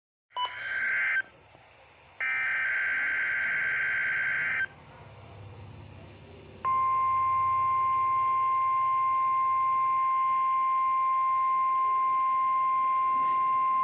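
NOAA Weather Radio EAS test signal: two bursts of the SAME digital header's data tones, a short one and then a longer one. About seven seconds in, the steady 1050 Hz warning alarm tone starts and holds as one unbroken tone.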